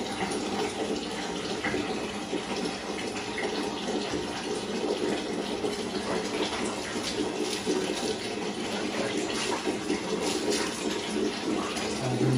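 Water running steadily from a tap, with splashing and dripping as a soaking-wet husky's fur is scrubbed by hand.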